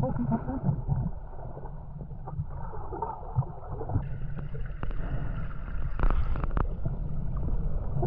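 Low steady rumble of a motorboat's engine out on the water, growing fuller about halfway through, with a few sharp clicks about six seconds in.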